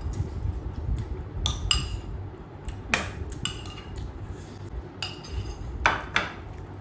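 Eating utensils clinking against dishes during a meal, about seven sharp clinks, some with a brief ringing tone, over a steady low rumble.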